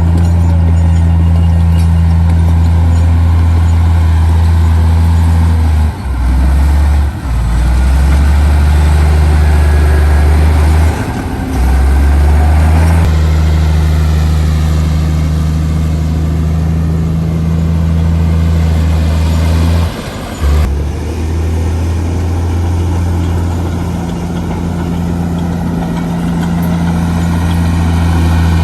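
Heavy diesel engine of earthmoving machinery running steadily under load, a deep, constant drone. It drops out abruptly for a moment a few times.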